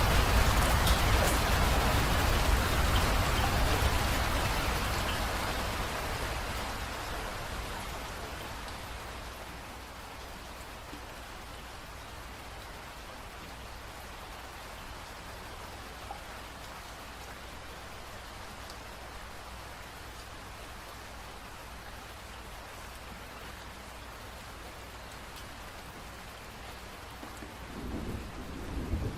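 Rain falling steadily with a deep rumble of thunder that dies away over the first several seconds. A new roll of thunder starts building near the end.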